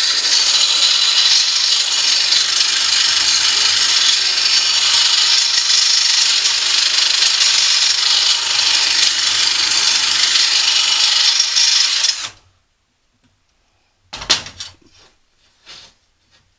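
A drill-driven mower-blade sharpening stone grinding along the steel edge of a lawn mower blade, a steady high hissing grind that cuts off abruptly about twelve seconds in. A couple of light clicks follow.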